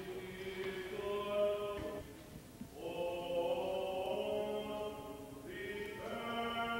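Orthodox liturgical chanting during a baptism: long held sung notes that shift in pitch every second or two, with a short break about two seconds in.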